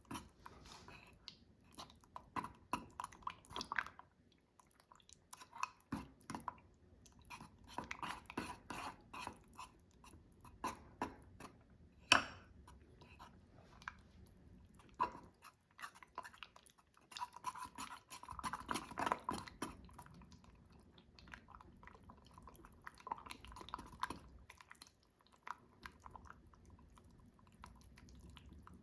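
A utensil stirring thick Nutella into a beaten egg in a mug: faint, irregular sticky scraping and small clicks against the mug, with a sharper tap about twelve seconds in.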